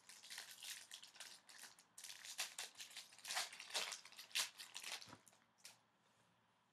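Foil wrapper of an O-Pee-Chee Platinum hockey card pack crinkling and tearing as it is pulled open by hand, a quick run of rustles that stops near the end.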